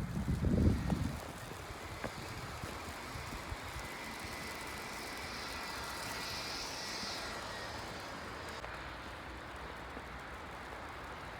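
Wind buffets the microphone for about a second, then a faint, steady hum and hiss of a distant vehicle that swells a little and fades.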